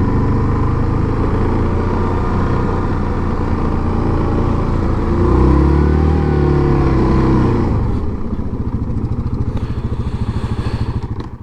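Single-cylinder engine of a 2017 Yamaha Grizzly 700 ATV running under way. It swells up in pitch and then falls back about halfway through, and settles into a lower, steady putting idle for the last few seconds as the machine slows.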